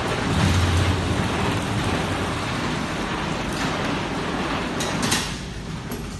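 Semi-automatic strapping machine running, with a strong low hum about half a second in and a few sharp clicks near the end.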